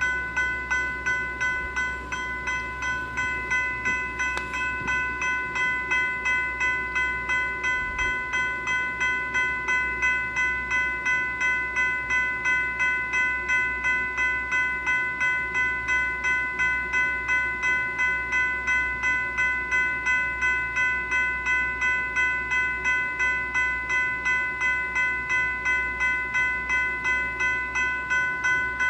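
General Signals Type 3 E-Bell, an electronic railroad crossing bell, ringing a steady repeating strike, about two dings a second, each a bright multi-tone chime that decays before the next.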